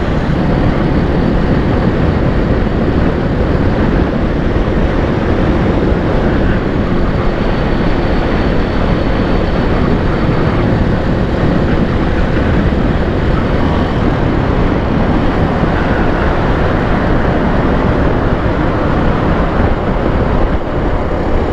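Steady wind rushing over the microphone of a motorcycle at cruising speed, with the Suzuki Volty's air-cooled 250 cc single-cylinder engine running underneath.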